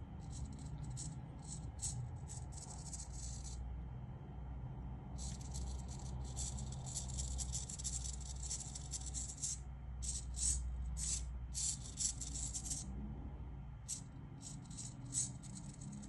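Small hobby micro servos in a pan-tilt bracket whirring in short, repeated bursts as they swivel under joystick control, with a steady low hum underneath.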